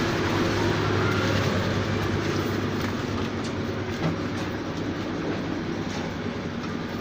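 Heavy machinery running steadily: a constant low engine hum under a dense mechanical rumble, easing slightly in level.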